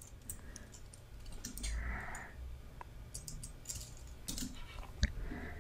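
Computer keyboard keystrokes: a few quiet, scattered taps, with one sharper click about five seconds in.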